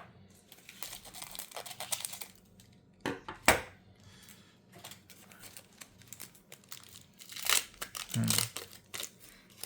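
Foil wrapper of a Pokémon TCG booster pack being torn open and crinkled, with scattered rustles and a sharp crackle about three and a half seconds in.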